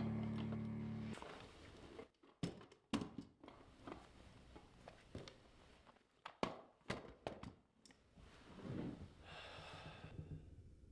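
Music fades out about a second in. Then come scattered faint knocks and clicks in small clusters, and a soft breath near the end.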